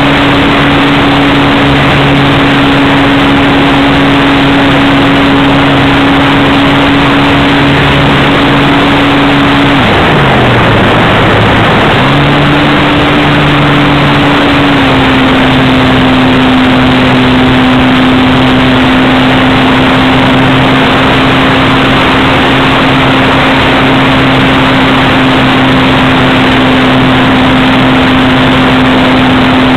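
RC airplane's 1400kv brushless outrunner motor and propeller heard from an onboard camera, humming at a steady pitch over heavy wind rush. About ten seconds in the pitch drops sharply as the motor is throttled back, then comes back up about two seconds later and settles a little lower.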